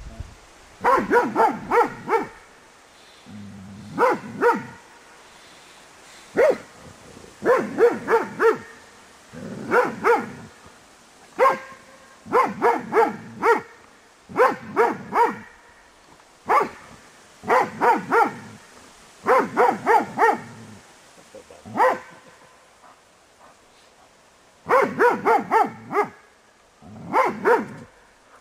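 A German Shepherd barking again and again in short bouts of one to four barks with brief pauses between, with a longer lull near the end. It is barking at the sheeted ghost figures of the MH test's ghost exercise, a threat display toward them.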